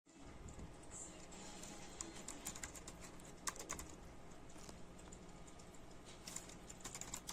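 Typing on a thin mini keyboard with pantograph (scissor-type) keys: a run of quick, irregular light key clicks, with one sharper click about three and a half seconds in.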